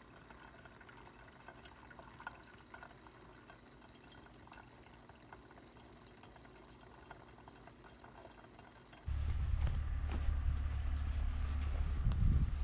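Bunn drip coffee maker brewing: a faint trickle and dripping of coffee into the glass carafe, with small ticks. About nine seconds in this gives way abruptly to a much louder, steady low rumble.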